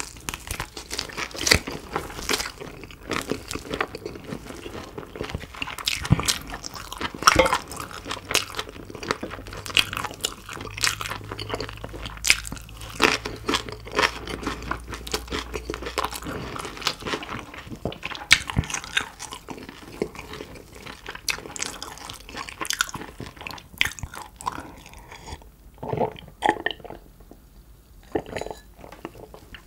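Close-miked chewing of crispy-skinned German roast pork knuckle (Schweinshaxe), with biting, crunching of the skin and wet mouth sounds. The crunching thins to sparser clicks near the end.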